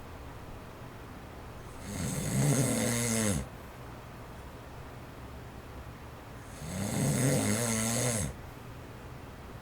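A man snoring twice, each snore about a second and a half long with a rattling, pitched drone, a few seconds apart; the sleeper has sleep apnea. Between snores an electric fan on its low setting gives a faint, steady whir.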